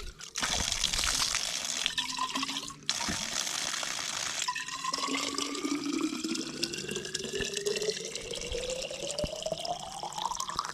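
Water running from a campground spigot into a container, the flow breaking off briefly a few times early on. In the second half the pitch of the filling rises steadily as the container fills up.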